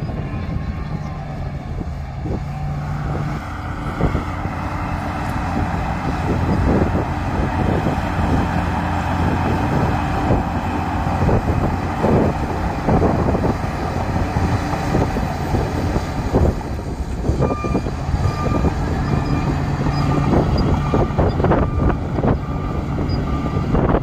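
Crawler bulldozer's diesel engine running under load as it pushes earth, with frequent clanks and knocks from the machine. Over the last several seconds a reversing alarm beeps repeatedly.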